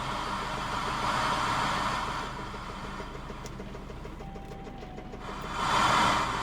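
Toyota Celica's replacement JDM engine idling with a steady, rapid knock, swelling louder twice. The owner takes it for a badly knocking engine that needs replacing, not just carbon buildup.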